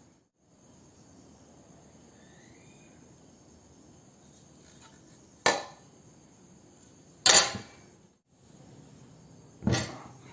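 Three sharp knocks about two seconds apart, each with a short ringing tail.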